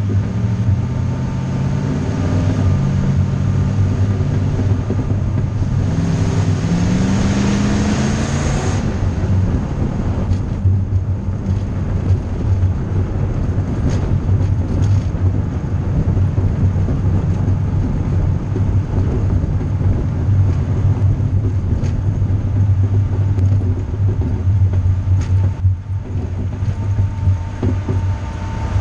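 Vehicle engine and road noise from the moving vehicle carrying the camera. The engine pitch climbs during the first nine seconds as it accelerates, then breaks off suddenly. After that the vehicle runs steadily at cruising speed with a constant rumble.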